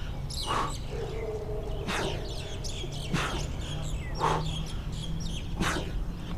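A man breathing out hard with each push-up, a short puff of breath about once a second. Birds chirp faintly in the background.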